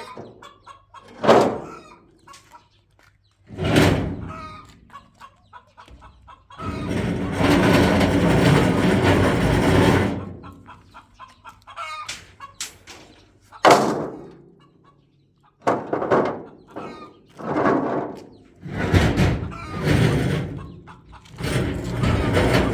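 Chickens clucking, with a few louder calls that may be a rooster crowing. A stretch of steady rushing noise runs from about a third of the way in for several seconds.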